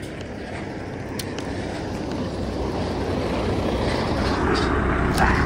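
A lorry passing close by on the road, its tyre and engine noise growing steadily louder and peaking near the end.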